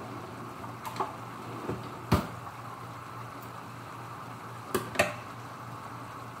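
A few sharp clicks and knocks of kitchen handling off to the side: one about a second in, the loudest just after two seconds, and two close together near five seconds. They sit over a steady low hum and the faint simmer of a pot of ground-beef sauce on a gas stove.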